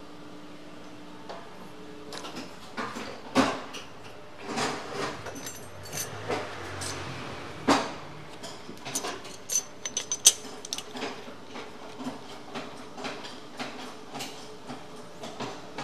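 Irregular clicks and knocks over a low steady background hum, with the sharpest knocks about a third of the way in, near the middle and about two thirds in.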